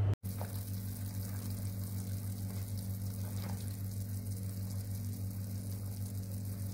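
Pork pieces simmering in water in an aluminium pot on the stove, being boiled for broth: a steady hiss of bubbling over a steady low hum.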